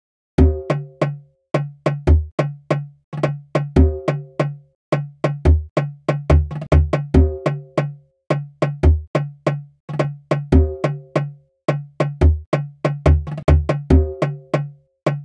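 Programmed percussion loop of sampled one-shots, including a large djembe sample, playing back: a busy, steady rhythm of sharp clicky hits over deep booms and short pitched drum tones. It starts about half a second in.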